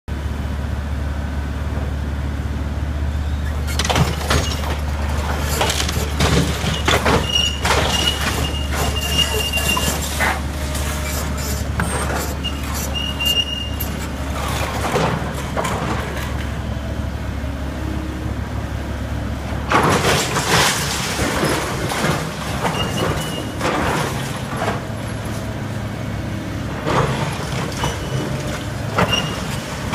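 Samsung hydraulic excavator demolishing a brick building's roof and wall: its diesel engine drones steadily under repeated cracks, crunches and crashes of breaking roof structure and falling debris. The engine drone drops away about twenty seconds in, just as a heavy run of crashing begins, and there are a few brief high-pitched squeals earlier on.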